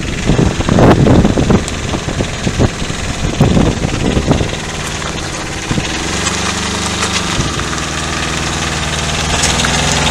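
Arctic Cat 700 diesel quad bike's engine pulling a livestock trailer. It sounds uneven and gusty for the first few seconds, then settles into a steady diesel note that grows a little louder near the end as the quad comes closer.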